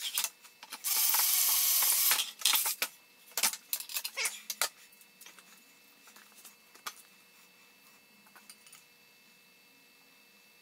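A short burst of pressurised hiss, lasting just over a second, starting about a second in. Then a run of sharp metallic clinks and knocks as steel parts are handled on a steel bench, thinning to occasional light ticks.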